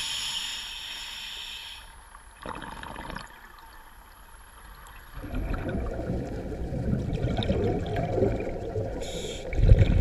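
Scuba diver breathing through a regulator underwater: a hissing inhale at the start and again near the end, and a long bubbling exhale of bubbles in the second half.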